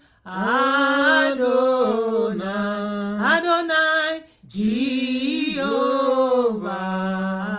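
A single voice singing a slow, unaccompanied worship chorus, drawing out the names "Elohim" and "Adonai" in long held, sliding notes. There is a short breath pause about four seconds in.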